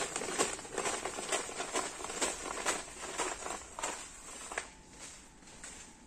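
Footsteps on a concrete floor at a walking pace of about two steps a second, with light crackle, stopping about four and a half seconds in.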